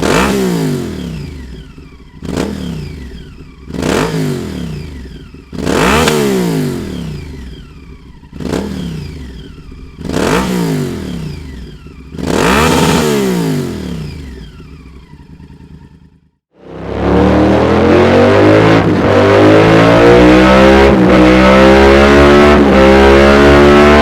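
Honda VTR 1000 F's V-twin engine with a Dominator aftermarket exhaust, revved in about eight sharp throttle blips, each rising fast and falling back to idle. After a short cut about 16 seconds in, it runs loud and steady under load, the revs climbing slowly, as in a dyno pull.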